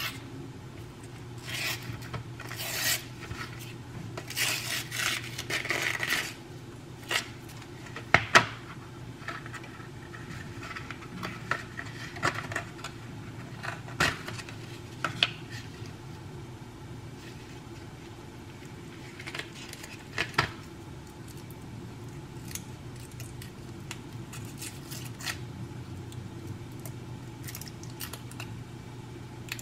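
A round cardboard cheese box being opened by hand: several seconds of papery rubbing and rasping as the tear strip is pulled around the rim, then a few sharp clicks and taps as the lid comes off and the box is handled on the counter. Near the end the foil wrapper of a cheese wedge crinkles.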